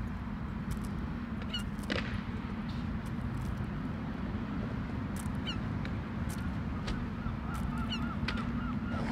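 Gull pecking at bubble wrap, giving scattered sharp pops, over a steady low rumble. Near the end a bird calls in a quick run of short repeated notes.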